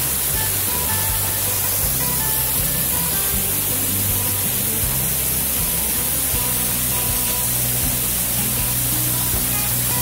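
Background music with low sustained notes that shift every second or so and short, thin high notes over them.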